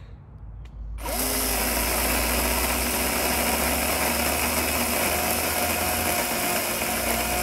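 Battery-powered chainsaw starting about a second in with a quick rise in pitch, then running steadily as it cuts an undercut into a small tree trunk.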